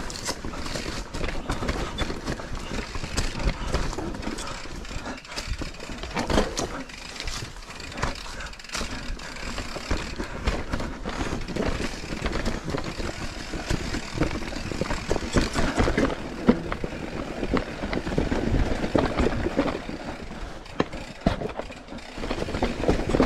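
Mountain bike riding over a rough trail: rolling tyre noise with a low rumble and many irregular knocks and rattles from the bike.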